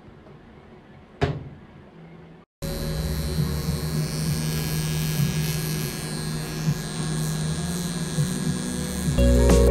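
Faint room tone with one sharp click about a second in. From about two and a half seconds, a steady electric buzz with hiss from a facial treatment device. Music with a deep bass comes in near the end.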